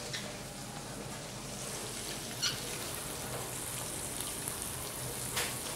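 Lobsters frying in olive oil and butter in a copper sauté pan: a steady, even sizzle, with a couple of faint clicks.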